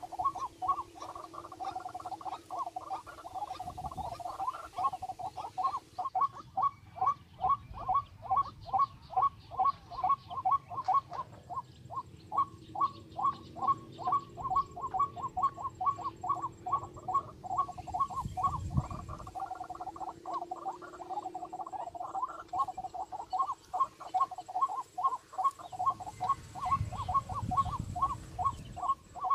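A bird's call, a short note repeated steadily about three times a second, with a few low rumbles mixed in.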